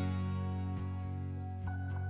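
Soft background music with sustained notes and a gentle plucked-string melody.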